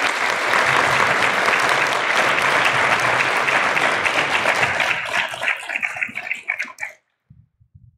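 Audience applauding, loud and sustained at first, then thinning to scattered individual claps and stopping about seven seconds in.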